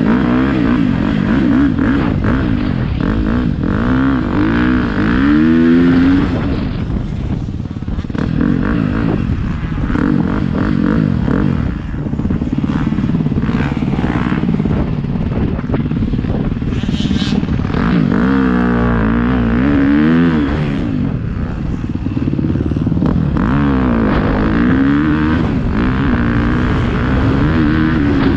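Motocross bike engine revving as the rider rides the practice track, its pitch climbing and dropping again and again through the gears. Heard close from the rider's helmet.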